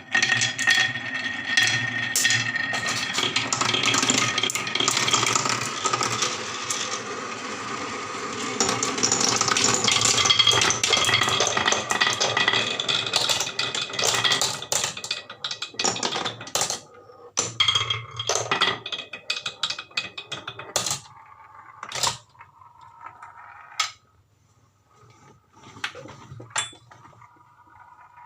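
Many marbles rolling and clattering down a HABA wooden marble run track: a dense, continuous rattle of clicks for the first fifteen seconds or so. It then thins to scattered single clicks and knocks as the last marbles run down, nearly quiet shortly before the end.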